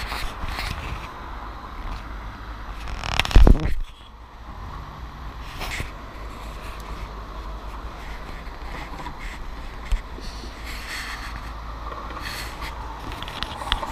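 City street noise with traffic, a steady rumble and scattered rustles, broken by one loud, low thump about three seconds in.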